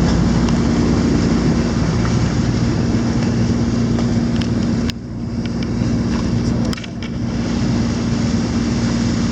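Boat engine running steadily with a low hum, heard on board with wind and water noise; the sound drops abruptly twice, about five and seven seconds in.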